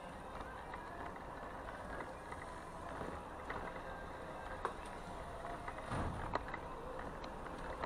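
City street traffic and road noise heard from a moving bicycle, with a few sharp clicks and knocks about four and a half and six seconds in.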